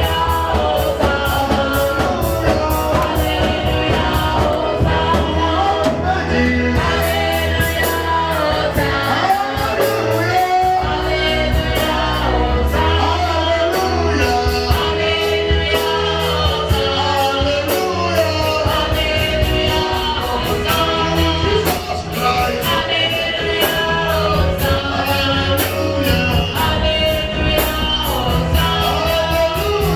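Amplified band music with singing: a steady bass line and beat under a melodic vocal line.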